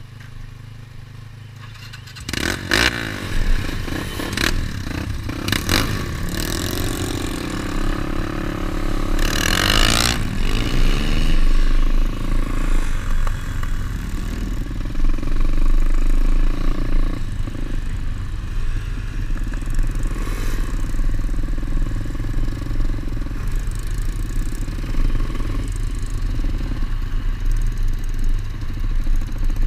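Pit bike engines running and revving up and down on a forest ride, with clattering knocks. The engine sound comes in suddenly about two seconds in.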